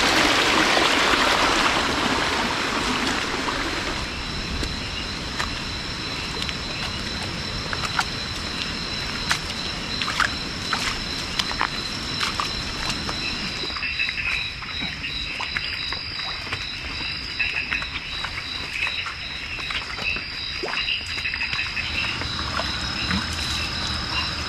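Night forest chorus of frogs and insects: steady high trills with rapid pulsing, over scattered sharp clicks and snaps. A rushing hiss, the loudest sound, fills the first few seconds and then fades.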